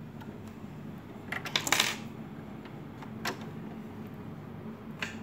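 Small, sharp metallic clicks and clinks from parts of a sewing machine being handled: a quick cluster about one and a half seconds in, then single clicks near three seconds and again near the end.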